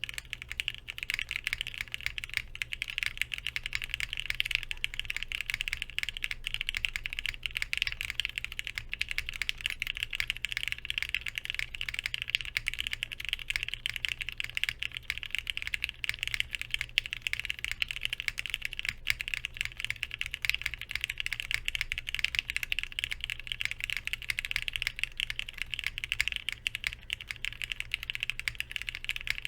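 Continuous fast typing on a plateless Vertex Arc60 mechanical keyboard with lubed Cherry MX Hyperglide Black linear switches and PBT keycaps: a dense, even stream of key clacks.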